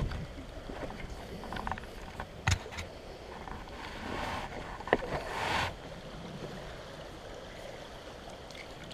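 Handling noise from an angler clambering over shoreline rocks with rod in hand: a few sharp knocks, the clearest about two and a half and five seconds in, and brief rustles around them. Faint steady creek water runs underneath.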